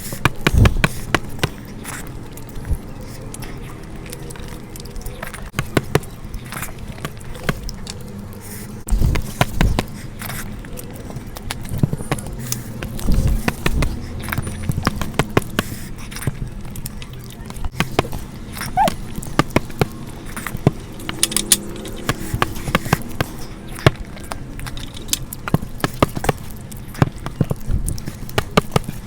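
Close-up eating sounds: wet chewing, lip smacks and irregular sharp crunchy clicks, with a few soft low thuds, over a steady low hum.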